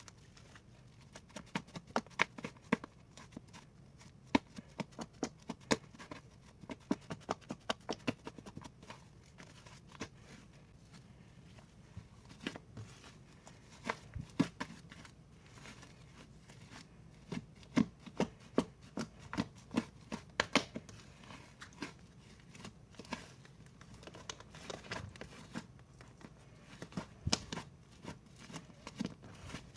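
Slime being squished and poked by hand, giving irregular runs of sticky clicks and pops, in clusters with short pauses between.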